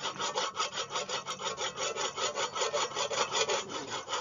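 Hand abrasive tool rubbed back and forth over a motorcycle's steel brake disc, in quick even strokes about five a second. It is grinding down the disc's scored, uneven face so the brake can grip properly.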